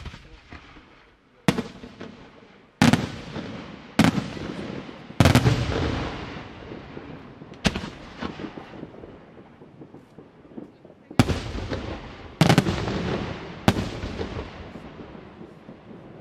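Aerial firework shells bursting: about nine sharp booms at uneven intervals, each followed by a long echoing rumble that dies away.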